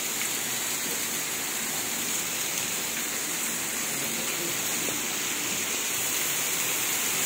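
Steady rush of water, a continuous hiss, slowly growing louder toward the end.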